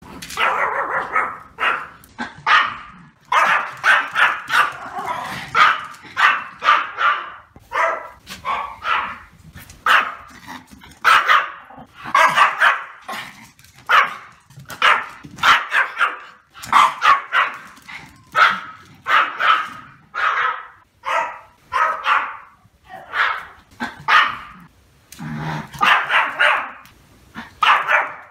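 A male Pomeranian barking repeatedly: quick runs of short, high, sharp barks, several a second, with brief pauses between runs.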